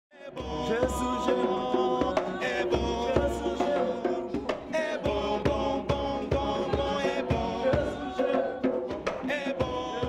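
Music with a steady drum beat under sustained chords, fading in at the start.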